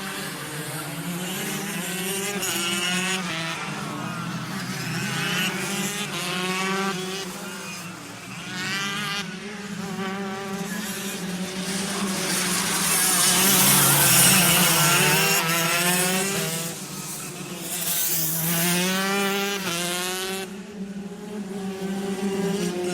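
Several go-karts passing one after another, their small engines rising and falling in pitch as they accelerate and lift off, loudest about two thirds of the way through.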